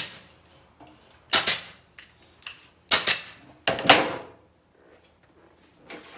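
Kamsin 15-gauge pneumatic C-ring gun firing, closing steel C-rings onto chicken wire: four sharp snaps, each with a brief hiss of air, about one every second in the first four seconds.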